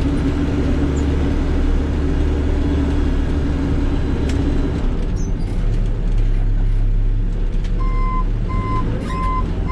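Volvo BL70 backhoe's four-cylinder turbocharged engine running steadily as the machine drives, its note dropping about halfway through. Near the end its backup alarm starts beeping, about one beep every two-thirds of a second, as it reverses.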